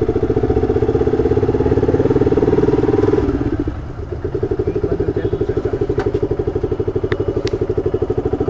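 Motorcycle engine running with an even, rapid pulse. It drops in level about three seconds in and comes back up about a second later.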